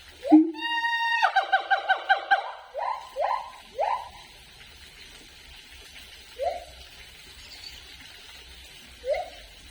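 Siamang calling: short rising whoops, then a held note that breaks into a fast run of about eight pulses a second, followed by more rising whoops that become sparser, the last two several seconds apart.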